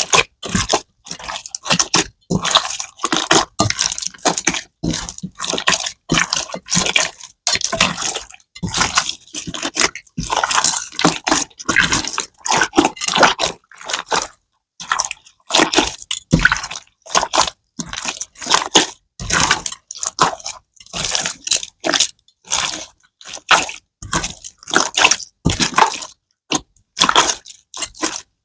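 Slime being squeezed, pressed and pulled by hand: an irregular run of short, wet sounds, several a second, with brief pauses between handfuls.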